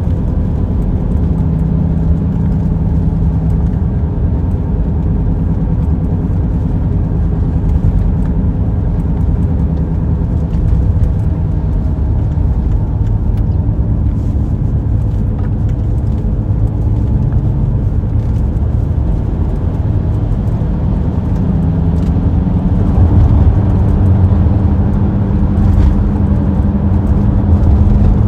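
A car driving at road speed: steady low road and engine rumble, with a faint engine hum that shifts in pitch a few times.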